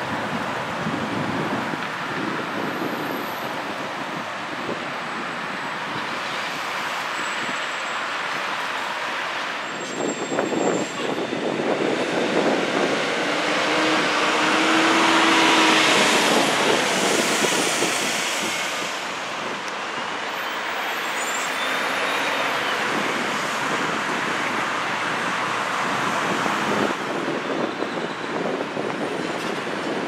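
Steady city street traffic noise, swelling as a vehicle passes about halfway through.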